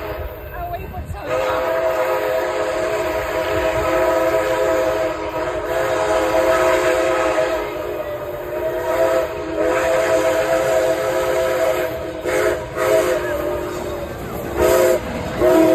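Whistle of Canadian Pacific 2816, a Hudson steam locomotive, blowing a chord of several steady notes: sounding in blasts starting about a second in, a long one first and then shorter ones near the end.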